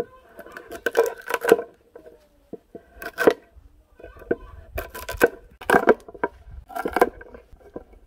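Woody eumnamu (castor aralia) and ogapi branches being cut and snapped: a string of separate sharp cracks and crunches, several in quick pairs.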